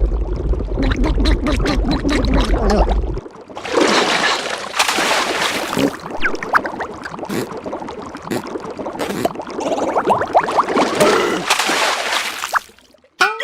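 Cartoon sound effects: wet, gurgling, splashing noises. A low rumble with rapid clicking runs through the first three seconds.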